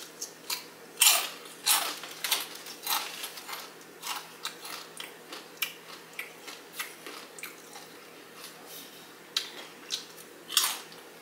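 Biting and chewing crisp kettle-cooked jalapeño potato chips: a run of sharp, loud crunches in the first few seconds, softer chewing crunches through the middle, and a fresh set of loud crunches near the end.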